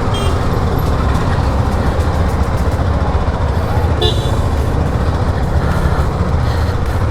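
Motorcycle engine running in street traffic with constant road noise, and a short horn toot about four seconds in.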